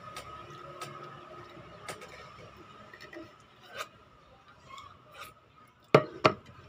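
Wooden chopsticks tapping and scraping on a ceramic plate in light scattered clicks, over a faint steady hum. Two sharp knocks on the plate come close together near the end.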